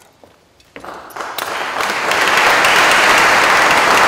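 Audience applauding: a few scattered claps about a second in, quickly swelling into steady, full applause.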